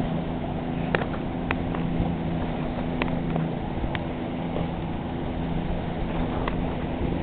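Boat motor running at a steady pitch as the boat moves along the channel, with a few short sharp clicks over it.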